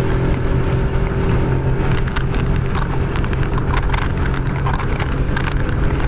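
Inflatable boat's outboard motor running steadily under way, with a steady low hum, and wind and water rushing past with scattered slaps against the hull.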